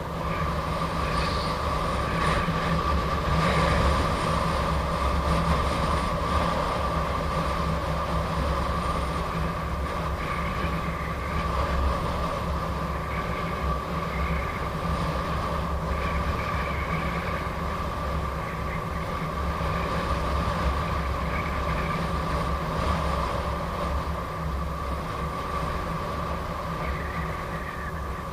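Gotway MSP electric unicycle riding at steady speed: the hub motor gives a steady high whine over a constant rumble of tyre and wind noise on the microphone.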